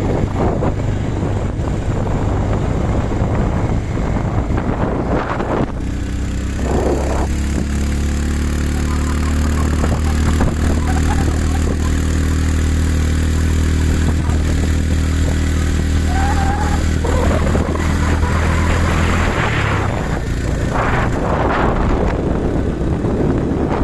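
Motorcycle engine running at a steady speed while riding, with rushing wind noise on the microphone; the engine's steady hum is clearest through the middle stretch.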